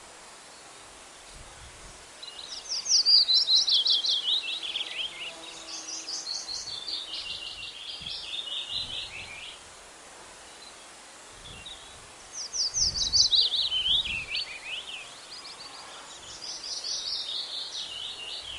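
A songbird singing twice, each song a long, fast trill that falls in pitch and then carries on as a second, steadier trill, over a steady outdoor hiss.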